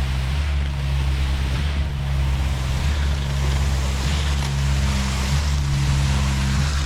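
Concrete mixer truck's diesel engine running steadily, a low hum under a continuous rushing noise.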